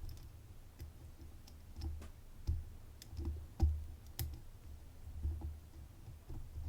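Small irregular clicks and taps of a dimple pick working the pins of a dimple Euro cylinder lock held under tension, over low handling bumps, with a few sharper clicks in the middle.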